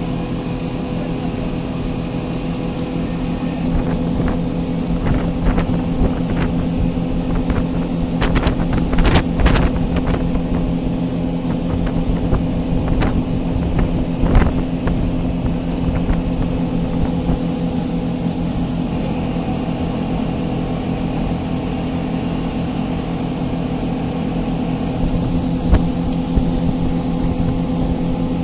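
Passenger motorboat's engine running steadily at cruising speed with a constant hum. A scatter of sharp knocks comes in about four seconds in and dies away by about fifteen seconds.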